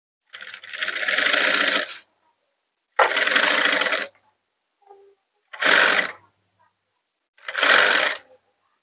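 Sewing machine stitching in four short runs with pauses between, the first the longest. The runs stitch readymade piping onto a blouse around a curved edge, the fabric being turned between runs.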